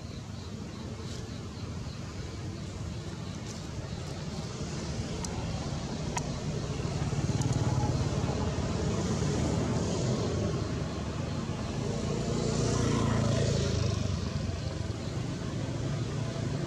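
Outdoor rumble of passing motor vehicles, swelling louder twice, near the middle and again about three-quarters through, then easing off.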